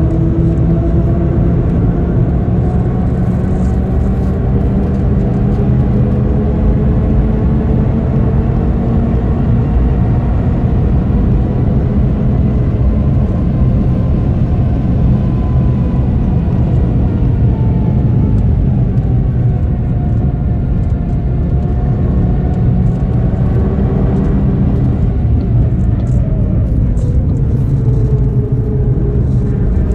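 2013 Audi TT RS's turbocharged 2.5-litre five-cylinder engine pulling at full throttle at high speed, heard from inside the cabin over heavy wind and road rumble. The engine note climbs steadily for about half the time, drops as the car lifts off and brakes, then climbs again near the end.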